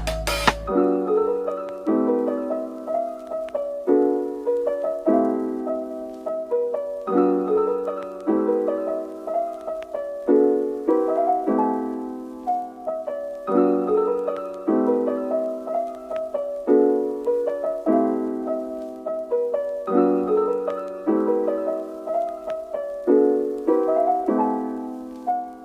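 Background music: a soft piano piece of gentle repeating chords and a light melody, coming in just after a louder track with heavy bass cuts off within the first second.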